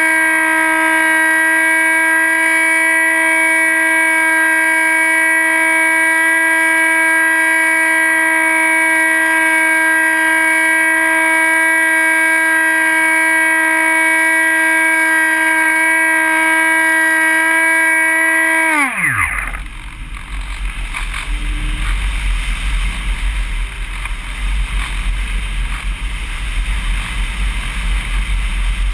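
Electric motor and propeller of a Dynam Hawk Sky RC plane running at a steady high whine, then about 19 seconds in it winds down in a falling pitch and stops. After that only wind rushes and rumbles over the camera as the plane glides unpowered.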